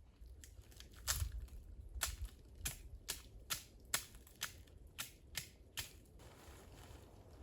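A quick run of about a dozen sharp crunches, roughly two a second, followed from about six seconds in by a steady hiss.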